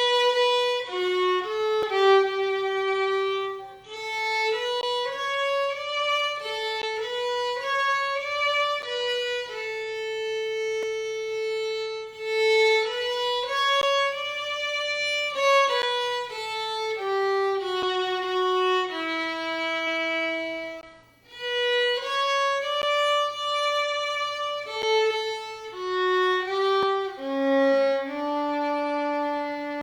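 Solo violin playing a slow melody in long held notes, with brief breaks between phrases about four seconds in and again near twenty-one seconds.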